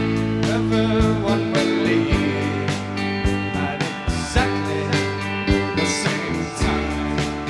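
Band music with a steady drum beat.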